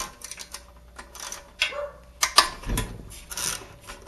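Hand tools clicking and clinking on the small metal parts of a Predator 212 engine while its throttle linkage plate assembly is unbolted: a string of irregular sharp clicks with a few short scrapes.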